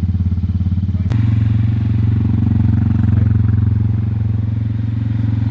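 1990 Yamaha XT 350's single-cylinder four-stroke engine idling steadily with the choke on. A sharp click comes about a second in, and the engine note steps up slightly after it.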